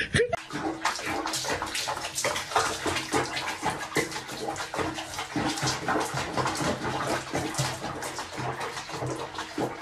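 Water splashing and running in a small bath basin full of foam, an irregular, steady spatter.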